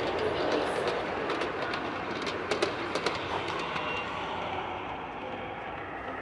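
Model train rolling past on its track, its wheels clicking over the rail joints. The sound slowly fades as the train runs into a tunnel.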